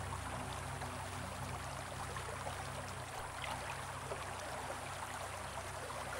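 Shallow stream water trickling and lapping over rocks, a steady, even hiss.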